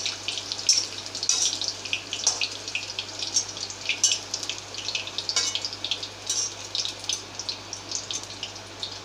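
Hot oil sizzling with many irregular crackles and pops around a batch of fully fried semolina pakoras as they are lifted out of the kadai on a wire skimmer.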